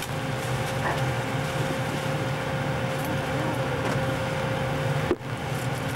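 Steady machinery and ventilation hum inside a battleship's fire-control plotting room, with a thin steady whine over it. The whine cuts out with a brief dropout about five seconds in.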